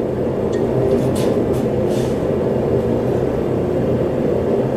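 Propane forge burner running with a steady rushing rumble, with a few faint brief scrapes about a second in.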